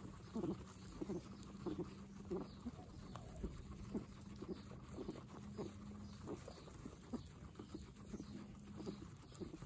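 Guinea pigs munching fresh grass and hay, a steady run of small crunching bites, about two or three a second.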